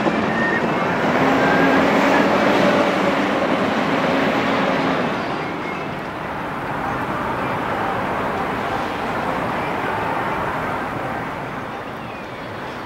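Electric tram running along the tramway: a steady rumble of wheels on rail with a faint whine, growing quieter about halfway through.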